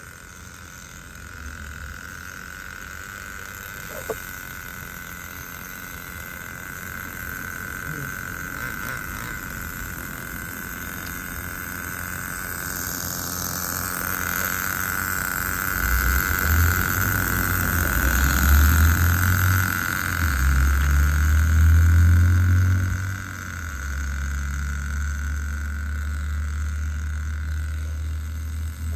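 Small nitro glow two-stroke engine of an RC car running during break-in. It grows louder through the middle, is loudest from about 17 to 22 seconds in, and drops back about 23 seconds in.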